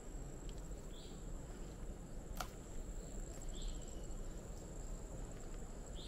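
Jungle ambience: insects trilling steadily at a high pitch, with two short chirps and one sharp click, over a steady low rumble.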